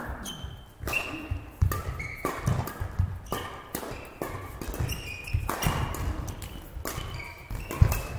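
Badminton singles rally: sharp cracks of rackets hitting the shuttlecock, short high squeaks of shoes on the court floor, and low thuds of landing footsteps.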